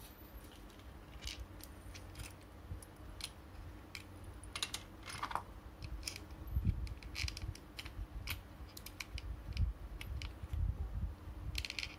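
Small clicks and taps of plastic toy parts being handled and prodded with a thin metal tool, over the low rumble of hands moving the parts.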